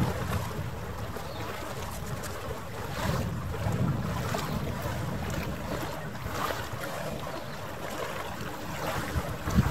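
Harbour ambience: wind gusting on the microphone over lapping water, with swells of low rumble.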